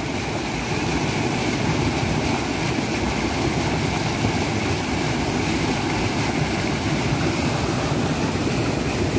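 Small waterfall on a rocky stream: water pouring over a low rock ledge and rushing between stones in a steady rush.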